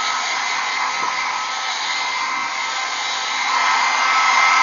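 Blow dryer running steadily while drying a dog's coat: a constant rush of air with a thin whine, getting a little louder about three and a half seconds in.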